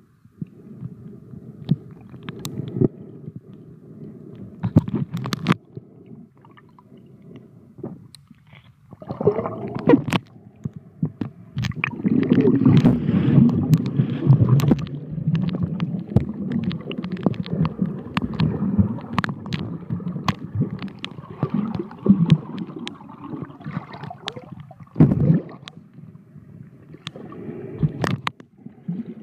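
Underwater sound of water rushing and gurgling against a moving camera, a low rumble peppered with scattered sharp clicks, growing much louder about nine seconds in as the camera swings quickly through the water.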